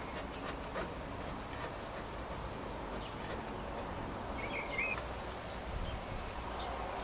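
Quiet outdoor background with a few faint clicks from a brake caliper being handled, and one short wavering bird chirp about four and a half seconds in.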